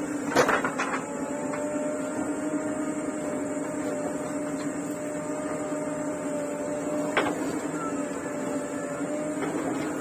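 JCB 3DX backhoe loader's diesel engine running steadily under load while its rear bucket digs soil. A few sharp knocks come about half a second in and again about seven seconds in.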